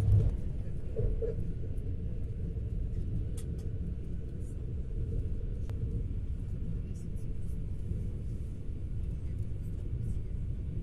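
Steady low rumble of a Sapsan (Siemens Velaro) high-speed electric train running at speed, heard from inside the carriage. It is louder for a moment at the start, while the train crosses a steel truss bridge.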